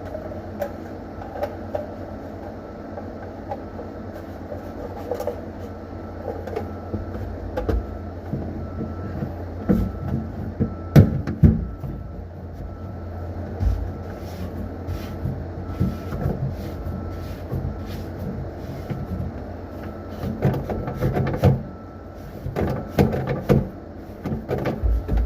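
Scattered knocks and clatter of objects being handled, over a steady low hum.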